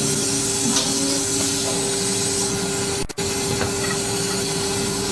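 Woodworking panel machine running: a steady motor hum under a loud, even hiss, with a very brief drop-out about three seconds in.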